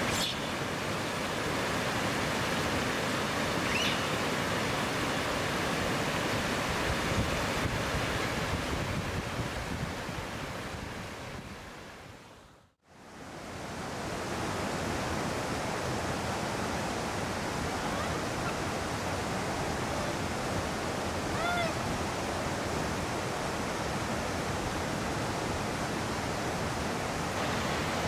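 Steady rushing of a mountain river, dipping briefly to silence about halfway through and coming back. A faint short call sounds about two-thirds of the way in.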